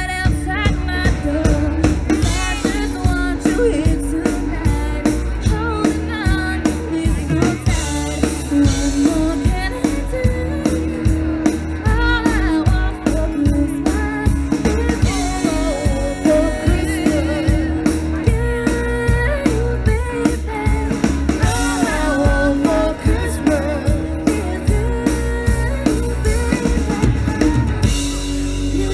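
A live band performing a song: a female singer over a drum kit keeping a steady beat, with guitar, played through a PA.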